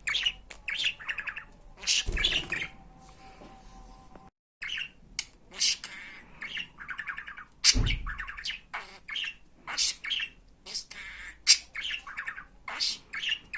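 A pet budgerigar chattering in quick runs of short chirps and squawks, with two dull low thumps about two and eight seconds in.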